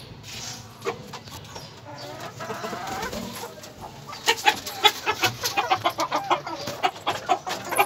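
Domestic hens clucking; from about halfway through the clucks grow louder and come in a quick, dense run.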